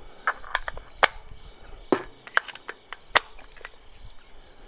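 About ten sharp, irregularly spaced clicks and taps, three of them louder than the rest.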